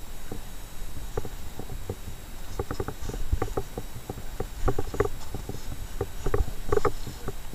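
Irregular clusters of short clicks and crunches as an angler works a fish on the ice, with the reel turning and boots and knees shifting on packed snow. A low wind rumble on the microphone runs underneath.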